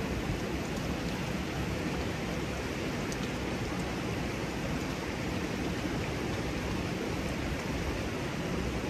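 Steady rush of running water from a small cascade spilling over a stone wall into a hot-spring pool.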